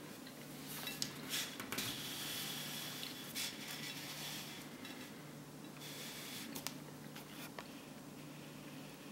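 Light handling noise: a few sharp little clicks and knocks, clustered around a second in and again near the end, with a soft rustle in between, over a steady low hum.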